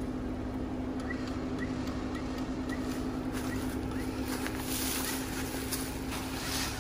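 Jeep Wrangler's engine running with a steady low drone and hum. A faint short chirp repeats about twice a second for a few seconds, and a few sharp clicks come near the end.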